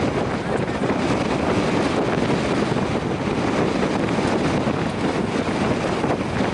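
Wind blowing across the camera microphone: a steady, loud rushing noise with no distinct events.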